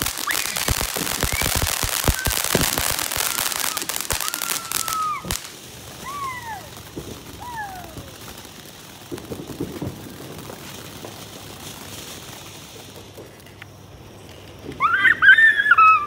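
Ground fountain fireworks spraying sparks: a rapid dense crackle for about five seconds, then a steady hiss that fades out before the end. A few short falling whistles come in the middle, and a loud high shout near the end.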